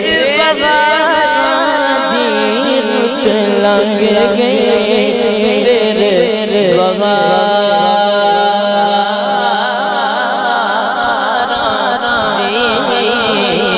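Punjabi devotional kalam: a male singer's drawn-out, wavering melodic line without clear words over a steady low drone, with long held notes about halfway through.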